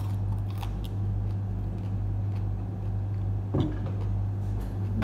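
A steady low hum with a few short crisp clicks, from a raw green onion being bitten and chewed and a spoon on a plate.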